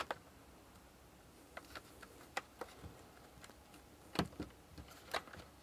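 The glass-fibre-reinforced nylon housing halves of a Makita DGA504 cordless angle grinder being worked apart by hand: a string of faint clicks and knocks. The loudest come about four seconds in and just after five seconds.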